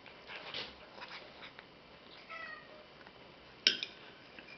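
Tabby kitten eating wet cat food from a ceramic bowl: soft, irregular wet chewing and smacking, with a brief faint mew about halfway and one sharp click against the bowl near the end.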